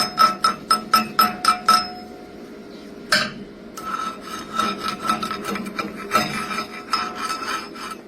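A hand tool scraping back and forth on a metal workpiece, with a metallic ring on each stroke. The strokes come quickly and evenly, about five a second, then stop about two seconds in. After a sharp clink near the three-second mark the scraping resumes in slower, irregular strokes.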